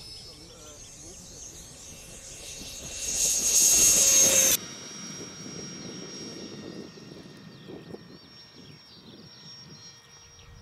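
Electric ducted-fan model jet whining at a high, steady pitch that steps up as the throttle opens. About three seconds in it swells into a loud rushing whine, which cuts off suddenly. A fainter high whine then carries on as the jet flies.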